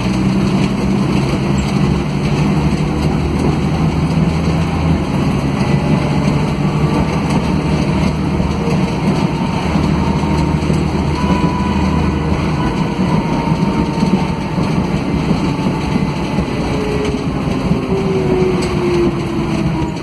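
Interior sound of a Mercedes-Benz O500 UA articulated bus under way: its OM457LA inline-six turbodiesel and ZF Ecomat automatic gearbox running, with road and cabin noise. The engine note is steady for the first two-thirds, then changes, and a faint falling whine comes in near the end.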